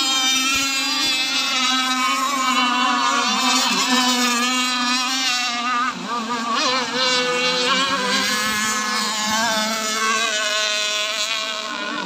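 Several radio-controlled racing powerboats running flat out, their small engines making a high buzz whose pitch wavers and shifts as the boats throttle, turn and pass.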